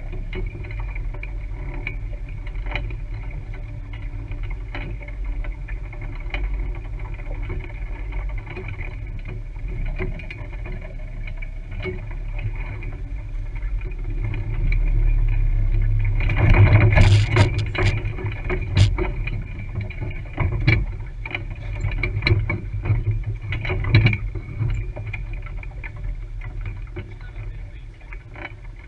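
A small boat's engine running steadily. About two-thirds of the way through comes a louder stretch of knocking and clatter, followed by a few more single knocks.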